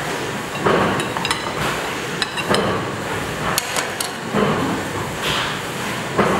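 Metal serving utensils clinking and knocking against ceramic plates while noodles are dished out: several short ringing clinks in small clusters, over a steady background hiss.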